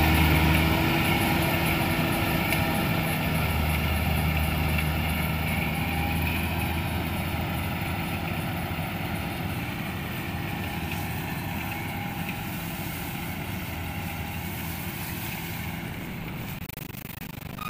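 Combine harvester's diesel engine running steadily, growing gradually quieter over the stretch.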